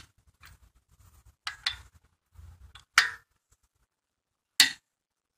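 Click-type torque wrench on a 19 mm socket clicking off at its 80 foot-pound setting as wheel lug nuts are tightened: several sharp metallic clicks about a second or more apart.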